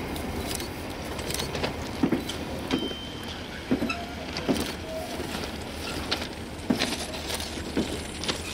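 Talgo Avril high-speed trainset being hauled slowly on temporary transport bogies: irregular clicks, knocks and clanks from the wheels and running gear over the track, with a few brief squeaks, over a steady low rumble from the hauling diesel locomotive.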